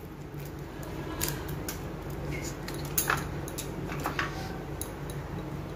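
Knife cutting into jackfruit seeds and their tough outer husk being peeled off by hand: a few short clicks and scrapes spaced out over a steady low hum.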